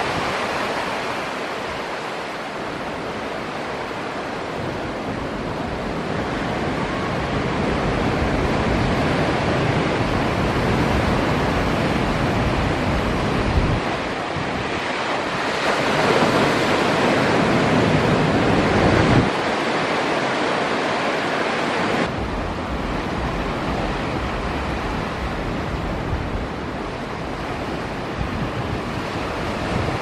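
Ocean surf: breaking waves make a continuous rushing wash, with wind on the microphone. The rush swells louder a little past halfway, then drops off abruptly.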